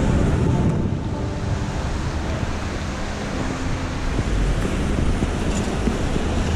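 Rainy city street: a steady hiss of traffic on a wet road and rain, with wind on the microphone.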